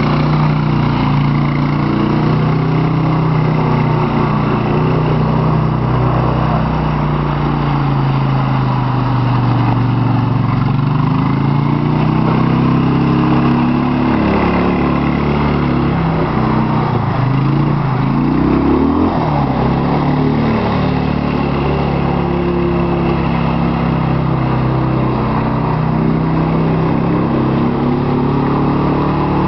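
1984 Suzuki LT185 ATV's single-cylinder engine running under throttle as it is ridden on two wheels, its pitch drifting up and down, with a dip and a quick rise about two-thirds of the way through.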